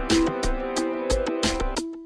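Instrumental background music with held chords over a steady beat. Near the end the chords stop and the beat carries on alone.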